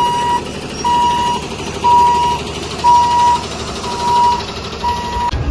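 Reversing alarm of a flatbed stake-bed truck beeping six times at one pitch, about once a second, over a steady low rumble.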